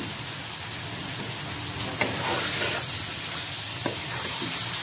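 Raw chicken pieces and potato chunks sizzling in hot oil and masala as they start to fry, the masala's water having nearly cooked off. A wooden spoon stirs them, with a couple of sharp knocks, and the sizzle gets louder about two seconds in.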